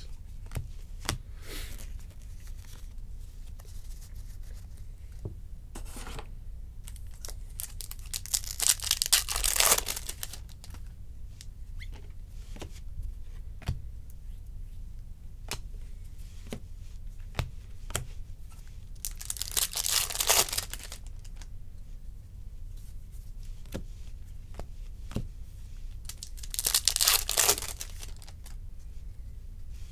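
Baseball card packs torn open, three rips of the wrapper about a third of the way in, two-thirds in and near the end, with light clicks and flicks of cards being handled and sorted in between.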